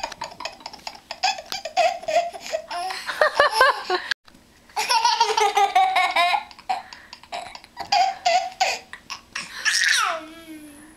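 A baby and a young boy laughing together in quick, repeated bursts of giggles and belly laughs, with a brief pause about four seconds in.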